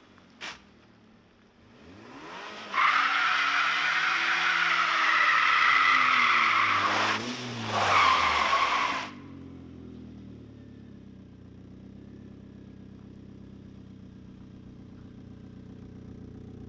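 1998 Saab 900 2.0 turbo in a burnout: the engine revs up and down while the front tyres spin and squeal on wet tarmac for about six seconds, with a brief dip near the end. The squeal stops suddenly and the engine settles to a steady idle.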